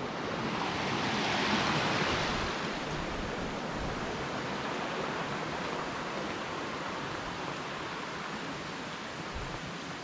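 Steady rush of water pouring down the Coban Rondo waterfall, swelling a little louder about a second in.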